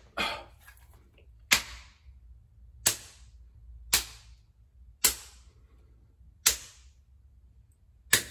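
Open hand slapping aftershave onto a freshly shaved face and neck: a series of about six sharp slaps on bare skin, roughly one every second or so.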